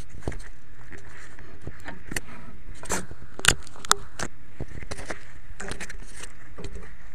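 Hands handling an FPV drone right at its onboard camera's microphone: scattered clicks and knocks over a steady background noise, with two sharper clicks about three and a half seconds in.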